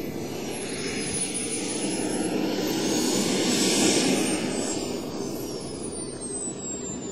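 Radio-controlled model jet flying past: its high engine whine rises in pitch and loudness to a peak about four seconds in, then falls away in pitch as it passes.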